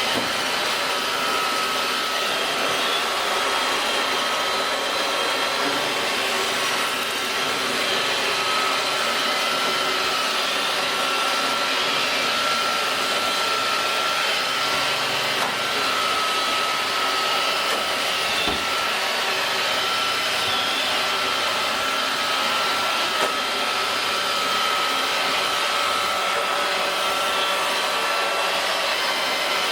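iRobot Roomba robot vacuum running steadily, a continuous motor-and-brush noise with a steady high whine. One brief knock comes about two-thirds of the way through.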